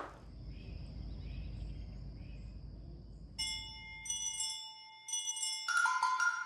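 Opening of a channel intro jingle: a faint low rumble, then bright bell-like chime notes struck a few times from about halfway, each ringing on, with a higher tone swelling in near the end.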